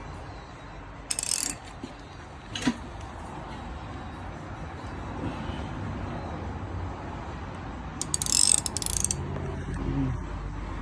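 Ratchet wrench clicking in two short bursts, briefly about a second in and longer about eight seconds in, with a single sharp metal click between them, as the engine is taken apart.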